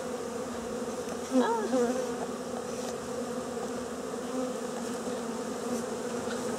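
Honeybees buzzing in a package, a steady hum, with a brief wavering squeak about a second and a half in.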